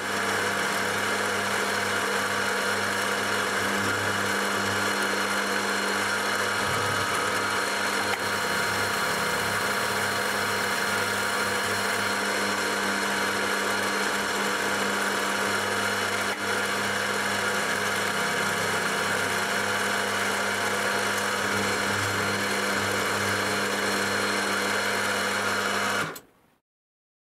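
Milling machine running at about 1000 RPM while a small four-flute carbide end mill mills along the top of a steel strip, taking off the scale. A steady machine sound that cuts off suddenly near the end.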